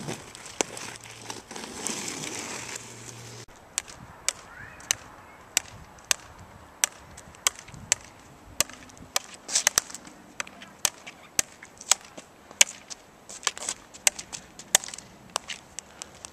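A ball being bounced again and again on a hockey stick blade: a long string of sharp taps, irregular, about one to two a second, some close together. Before them is a few seconds of steady outdoor noise.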